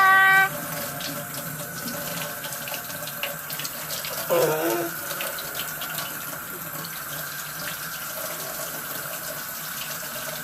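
Water running from a tap into a sink, a steady splashing hiss, while a toddler washes their hands under it. A small child's voice sounds briefly at the start and again about four seconds in.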